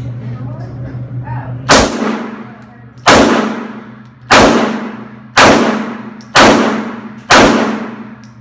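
A Glock 19 9mm pistol is fired six times at a steady pace of about one shot a second. Each shot rings on in a long echo off the walls of an indoor range.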